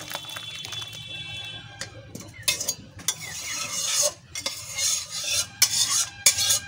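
A spoon scraping and knocking against a metal kadai as thick curry is scooped out into a steel bowl, in a run of short scrapes that grow louder and busier about halfway through.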